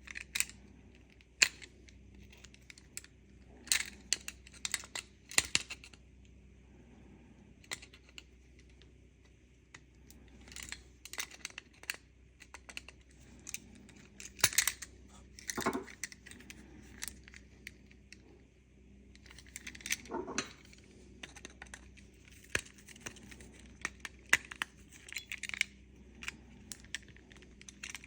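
Irregular small clicks, taps and short scrapes of hard plastic and metal parts being handled, with a light jingle of a key: a car key fob being worked on, its parts moved between an old and a new key shell.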